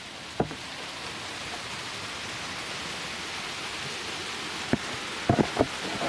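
Water pouring down an artificial rock waterfall: a steady rushing that grows louder over the first two seconds. A sharp knock about half a second in and several more near the end.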